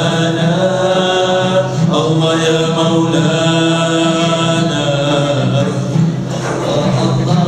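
A group of men singing a qasidah in Arabic without instruments, in long, gliding, ornamented notes.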